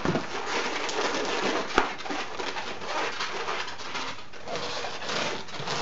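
Inflated latex modelling balloons squeaking and rubbing against each other as they are twisted together to attach the head's knot to the body, with one sharp click about two seconds in.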